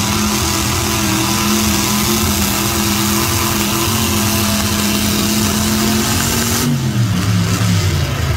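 Pulling vehicle's engine held at high revs under load while dragging the sled, with its pitch holding and creeping up slightly. About seven seconds in, the revs fall away in steps as the run ends.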